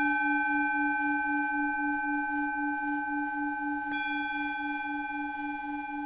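Planetary tones for Mars and the synodic Moon: a low steady tone that pulses about four times a second, under higher bell-like ringing tones that are struck again about four seconds in and slowly fade.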